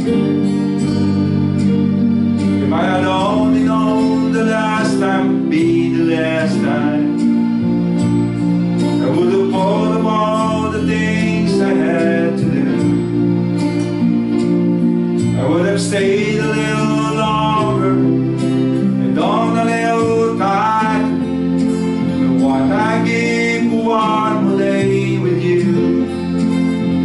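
Live acoustic guitar and Yamaha electronic keyboard accompanying a worship song, with a voice singing the melody in phrases from about two seconds in.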